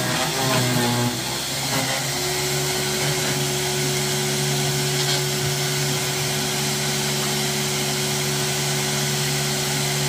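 Zubr electric garden shredder running with a steady hum and grinding noise as it chips branches.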